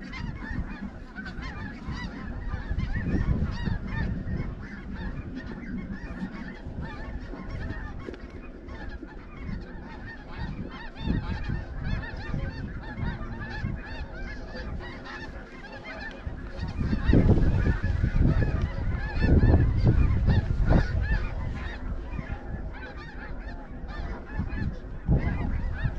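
A large flock of snow geese calling all at once, a dense continuous chatter of overlapping honks. A low rumble under the calls swells for a few seconds about two-thirds of the way through.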